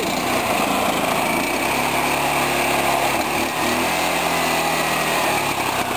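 Small single-cylinder horizontal-shaft engine on a homemade go-kart running with no load, its drive sprockets not yet connected; its speed dips briefly about three and a half seconds in, then comes back up.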